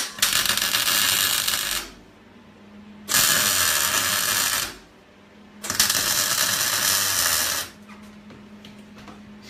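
Electric arc welding in three bursts of about one and a half to two seconds each, a few short welds with a pause between them. A steady low hum runs underneath.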